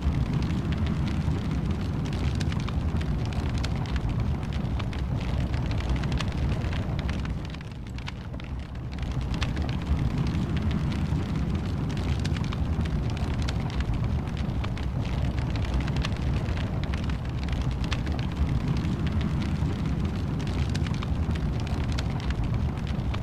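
Wood fire burning in a fireplace: a steady low rumble with frequent crackles and pops, dropping briefly quieter about eight seconds in.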